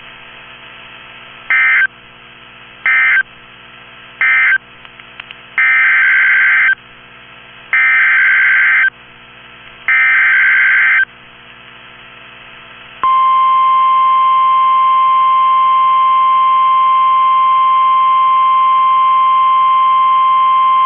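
NOAA Weather Radio SAME digital alert bursts: three short end-of-message bursts, then three longer header bursts for the next warning, each a harsh burst of data with a pause between. About 13 seconds in, the steady 1050 Hz warning alarm tone starts and holds, marking a new warning.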